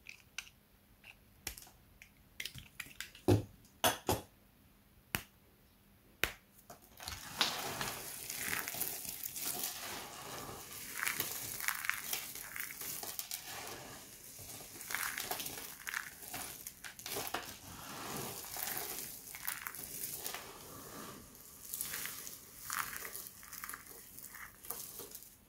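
Box-cutter blade cutting a striped bar of dry hard soap, a handful of separate sharp snaps over the first several seconds. From about seven seconds in, continuous crunching and crackling as hands squeeze and rub a heap of dry soap shavings.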